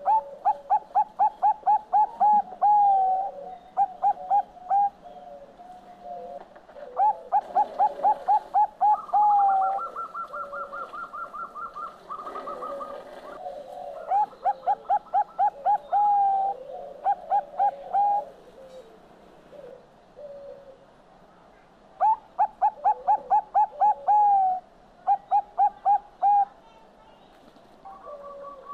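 Zebra dove (Bangkok-type perkutut) singing: several phrases of quick staccato coos at about five notes a second, each phrase ending on a longer drawn-out note, with pauses between phrases. Partway through, a higher, thinner run of rapid notes sounds on its own.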